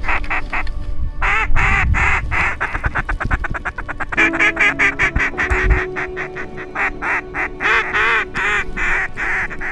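Duck quacking in fast runs of short, repeated quacks, several a second, with brief breaks between the runs.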